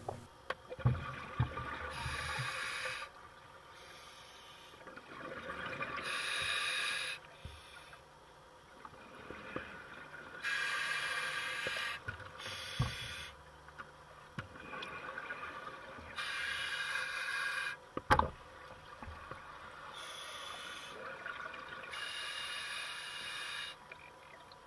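Scuba diver breathing through a regulator underwater: a hiss and bubbling rush with each breath, recurring about every four seconds, with one sharp knock about two-thirds of the way through.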